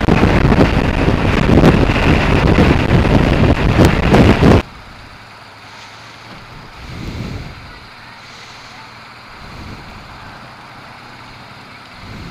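Wind buffeting the bike-mounted microphone at motorway speed, a loud, gusty rush, cut off abruptly about four and a half seconds in. After that comes a much quieter low hum of the motorcycle rolling slowly, with a brief swell in the middle.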